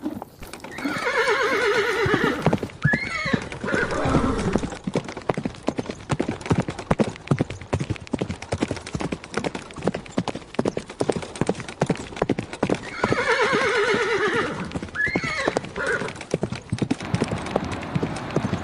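A horse whinnies for about two seconds, then hooves clip-clop in a fast, even beat. About twelve seconds in, the whinny and hoofbeats come again.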